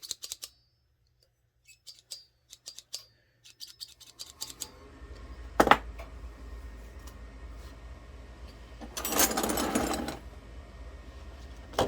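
Light clicks and taps of hand tools being handled, then a steady low mechanical hum comes on about four seconds in and keeps going. Over the hum there is a sharp clack near six seconds and a second-long rattling shuffle, like metal tools being sorted, a little past the middle.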